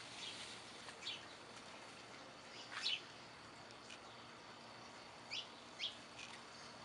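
Birds chirping outdoors: a few short, high chirps that fall in pitch. The loudest comes about three seconds in and two more follow in quick succession near the end, over a faint steady background hiss.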